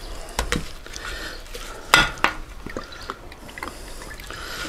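Kitchen handling clatter as cooking oil is got out and put on a raw whole chicken on a baking tray: a few small clicks and clinks, with one sharp clack about two seconds in and another just after.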